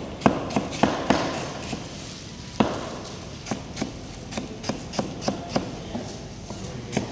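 A run of sharp, irregular knocks and taps, several a second at first and then about two a second, with one louder knock about two and a half seconds in.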